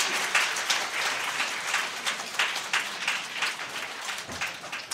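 Audience applauding: dense, uneven clapping that gradually dies away toward the end.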